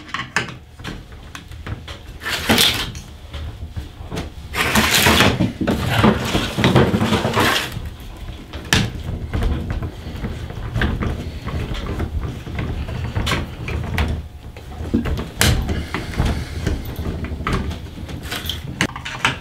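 Phillips screwdriver working the screws that hold the trip unit in a three-pole moulded case circuit breaker, with scraping, rubbing and short clicks and knocks of the tool and the plastic breaker case being handled on the bench. The scraping is loudest in a stretch of a few seconds near the middle.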